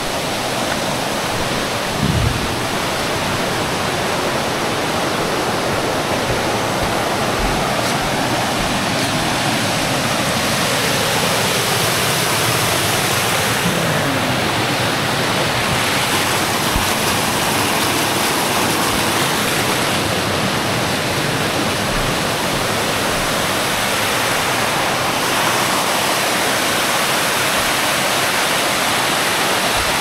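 Mountain stream rushing and cascading over rocks at the top of a waterfall: a steady, loud rush of white water.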